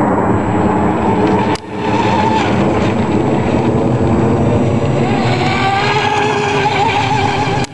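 Vortex 24 RC speedboat running at speed across the water: a motor whine that wavers up and down over a loud rushing hiss, the whine growing stronger as the boat comes closer near the end. The sound cuts out briefly about a second and a half in.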